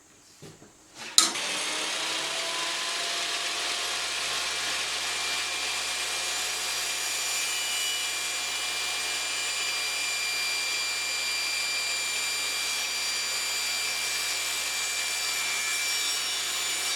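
Electric power saw switched on about a second in, its motor whining up to speed and then running steadily while cutting a piece of wood trim.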